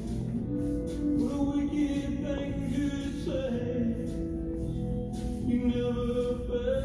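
Recorded slow rumba song playing for ballroom dancing: a sung vocal holds long, drawn-out notes over a soft, steady accompaniment.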